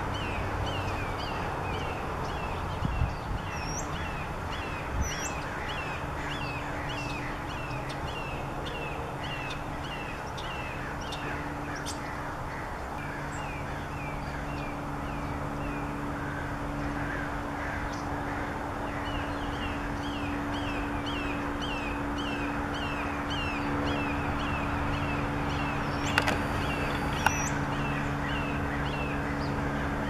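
Red-shouldered hawk calling a long series of short, descending screams at about two a second. The series pauses for several seconds midway, then resumes. A low steady hum comes in partway through.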